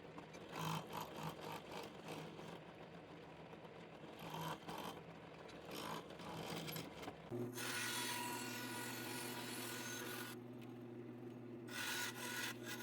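Irregular scraping and rubbing strokes. About seven seconds in, a power drill's motor starts running steadily with a hiss of bit cutting, which drops out briefly near the end and comes back: drilling holes through resin handle scales.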